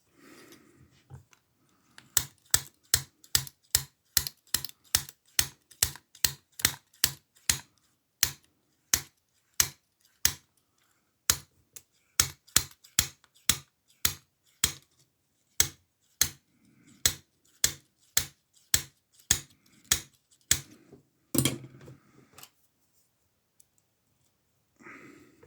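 Lock pick working the pins of an older Ruko oval cylinder in an ASSA brass-and-steel padlock: a long run of sharp metal clicks, about two to three a second, stopping near the end.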